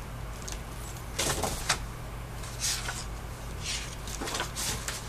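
Sheets of drawing paper rustling and sliding against each other in a handful of short scrapes as they are leafed through and handled.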